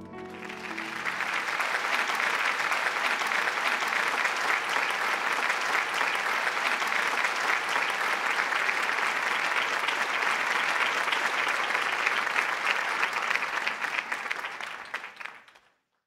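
Crowd applause, many hands clapping steadily, dying away about a second before the end. The tail of soft background music fades out in the first moment.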